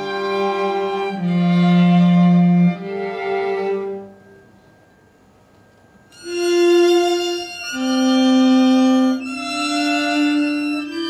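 String quartet of two violins, viola and cello playing long held chords that change about every second and a half, with a pause of about two seconds in the middle before the chords come back in. The piece turns 133 years of temperature records into music, with pitch and volume rising as the temperature rises.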